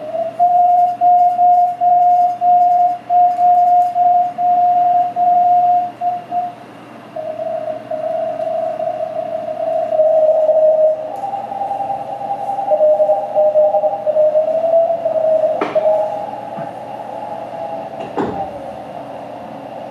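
Morse code (CW) received through the MB1 transceiver's speaker: a keyed tone sending dots and dashes, then a second, slightly lower tone overlapping it as the receiver is tuned. Near the end two brief sweeps cut across, one whistling down in pitch.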